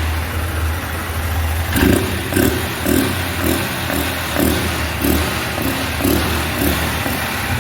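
Honda CG 160 Fan single-cylinder engine running with its air filter removed and the intake open. It idles steadily, then from about two seconds in is blipped repeatedly, about twice a second, giving a louder intake sound that is called a cool noise.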